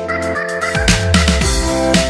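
Electronic background music with a heavy bass beat that comes in about a second in.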